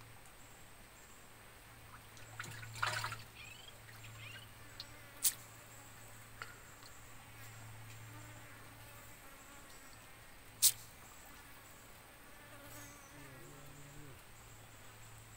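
Low steady insect buzz that rises briefly in pitch near the end. There is a short rustle about three seconds in, and two sharp clicks at about five and eleven seconds in, the second the loudest.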